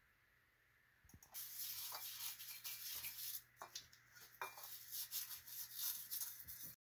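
Scrub brush scrubbing a wet copper cup just lifted from the pickle bath, in quick uneven rubbing strokes that start about a second in and cut off suddenly near the end.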